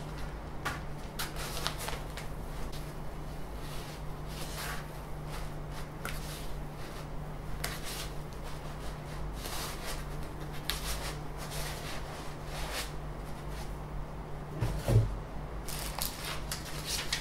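Clear plastic wrap crinkling and rustling in irregular crackles as a boxed delta 3D printer is handled, with one heavier thump about 15 seconds in.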